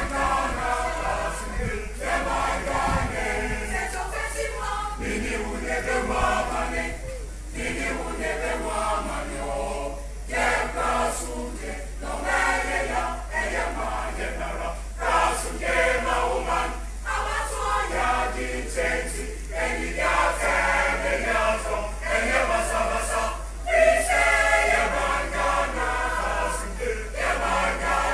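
Background music of a choir: several voices singing together in harmony.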